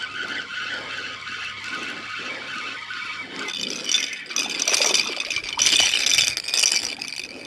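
Fishing reel being cranked fast, a steady gear rattle that grows louder and busier about three seconds in as a small fish is reeled up to the boat.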